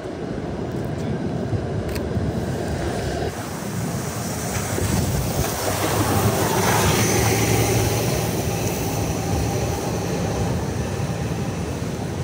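Traffic on a rain-soaked street: a steady hiss of rain and wet road noise, swelling as a vehicle passes on the wet tarmac about six seconds in, with a low engine hum after it.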